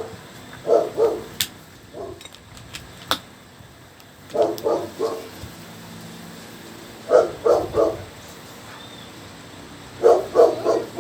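A dog barking in quick runs of two to four barks, repeated every few seconds, with a couple of sharp clicks in between.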